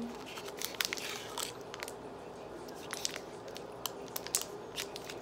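Wrapper of a Cadbury Dairy Milk bar crinkling and crackling in irregular sharp clicks as it is picked and peeled open by hand.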